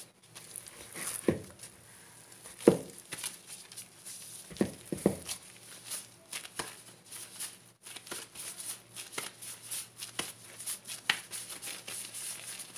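Plastic disposable gloves crinkling as hands shape a ball of methi paratha dough and press it into dry flour, with a few thumps, the loudest a few seconds in.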